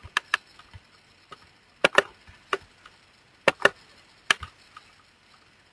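Computer mouse clicking: a handful of sharp clicks at irregular intervals, several of them in quick press-and-release pairs.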